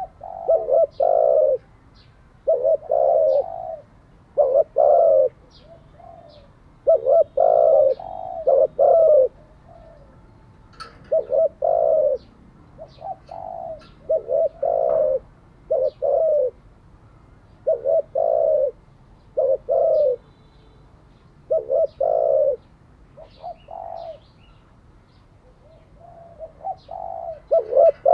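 Spotted dove cooing over and over: short phrases of two or three low coos, repeated every second or two with brief pauses between them.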